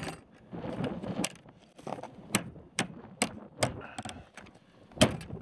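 A series of sharp knocks and clicks, about eight in all, spaced irregularly with a quicker run of four near the middle.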